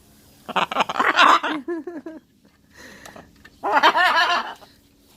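Two bursts of laughter about three seconds apart, each a run of quick rhythmic 'ha-ha' pulses.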